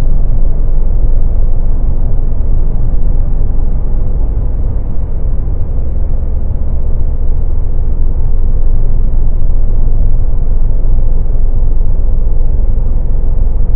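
Steady road noise of a Mercedes-Benz car cruising at highway speed: a heavy low rumble of tyres, wind and engine, with a faint steady hum above it.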